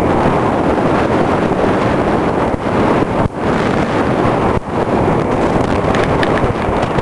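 Heavy wind buffeting on the microphone of a camera riding on a Suzuki Skywave 250 scooter at road speed: a loud, steady rush, with brief dips about three and four and a half seconds in.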